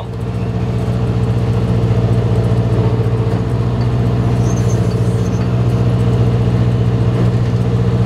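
John Deere tractor engine running at a steady speed, heard from inside the cab, with a strong, even low hum.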